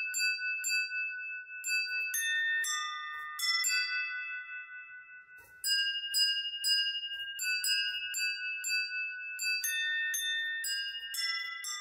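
Crystal wine glasses struck one at a time by a robot's relay-driven wooden dowel hammer, playing a slow melody. Each note starts with a light tap and rings on clearly, overlapping the next. The notes die away briefly about halfway through, then the tune picks up again.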